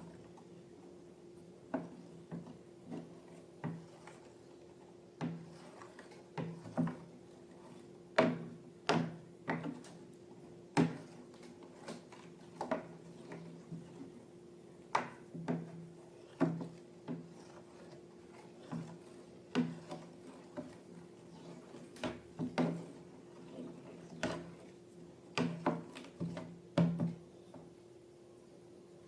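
Slime being handled and mixed, giving irregular short sticky clicks and pops about one or two a second, over a steady low hum.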